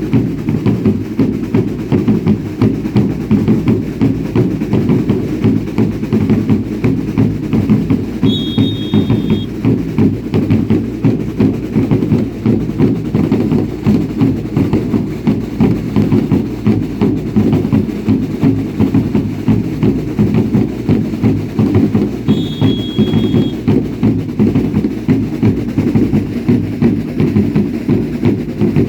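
Drums of a baile indio dance troupe beating a steady fast rhythm, with a short high whistle sounding twice, about eight seconds in and again about twenty-two seconds in.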